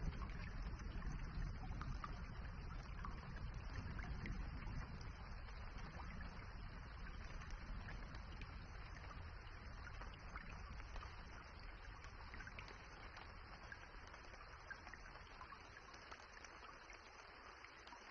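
Steady rain, an even hiss with scattered small drop ticks. A low rumble underneath dies away, and the whole sound grows gradually quieter.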